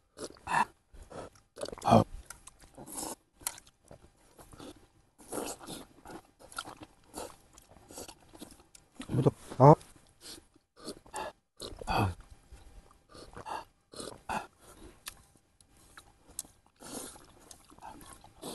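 A person eating ramen from a pot: slurping broth and noodles and chewing, in short irregular bursts. Two louder satisfied grunts with falling pitch come about halfway through.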